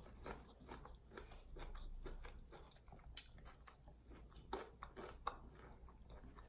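Person chewing crispy fried food close to the microphone: faint, irregular crunches and mouth clicks, a few a second.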